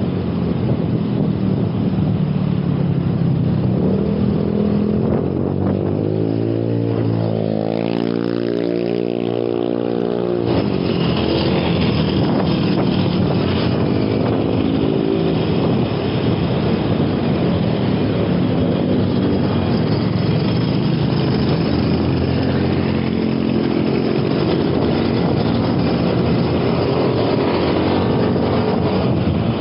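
Road traffic passing a moving bicycle, over a steady rush of noise. One engine passes close about seven seconds in, its pitch falling before it cuts off, and other engines rise and fade later.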